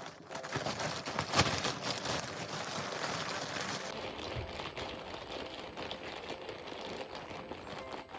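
A bag crinkling and rustling as a cat moves about in it: a dense, irregular crackle of small clicks, with a sharper crack about a second and a half in.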